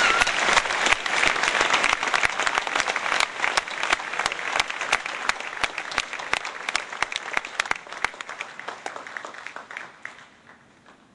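Audience applauding, loud at first and dying away over the last couple of seconds.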